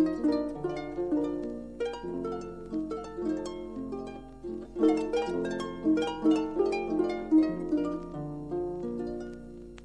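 Solo harp playing a cheerful Tyrolean folk tune in a lively rhythm of plucked, ringing notes, played back from a 1961 45 rpm vinyl record. A faint steady low hum runs underneath.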